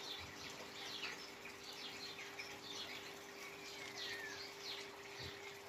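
Small birds chirping, with many short high chirps and one longer falling whistled note about four seconds in, over a steady faint hum.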